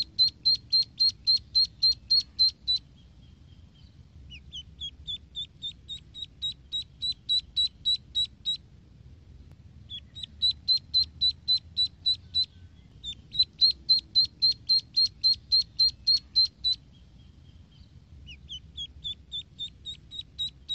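Duckling peeping: rapid runs of clear, high peeps, about five a second, broken by short pauses. Some runs begin with peeps rising in pitch.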